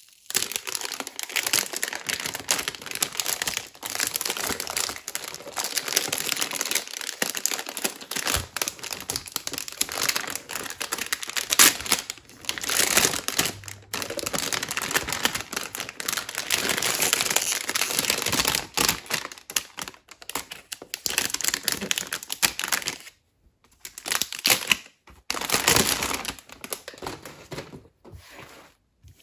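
Clear plastic bag crinkling and rustling as it is handled and pulled off a boxed speaker by hand, with a few short pauses near the end.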